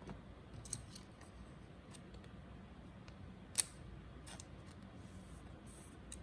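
Trading cards being handled and slid into a plastic card sleeve: faint scattered clicks and light rustles, with one sharper click about three and a half seconds in.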